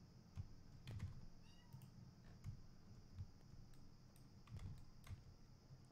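Faint, scattered clicks of a computer mouse and keyboard, a few irregular taps spread over a few seconds.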